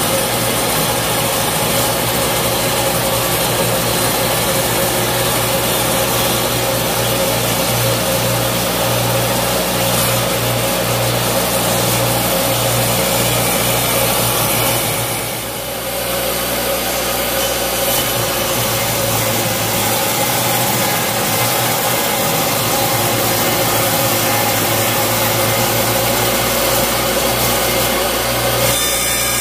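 Table saw running with its blade cutting into a square wood blank that a cordless drill spins against it in a jig, shaving the blank into a 20 mm round rod. The noise is steady, with a brief dip about halfway through.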